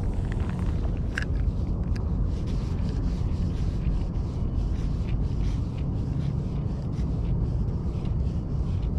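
Steady low rumble of wind buffeting the camera microphone, with faint scattered light ticks.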